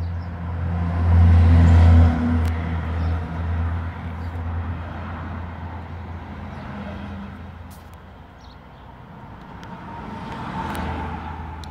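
Honda MTX 125's single-cylinder two-stroke engine running at a standstill. It gets louder about a second in, settles back, then swells again near the end.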